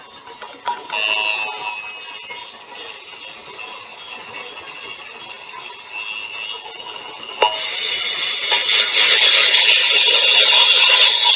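Emergency Alert System monthly-test alert signal coming over FM radio, picked up by a webcam microphone so that it sounds harsh and jumbled. It becomes much louder and denser about seven seconds in.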